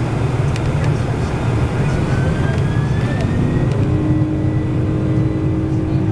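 Boeing 747-400's General Electric CF6 turbofan engines heard from inside the cabin during the takeoff roll: a loud, steady rumble. A whine rises in pitch a couple of seconds in, and a steady hum sets in about four seconds in.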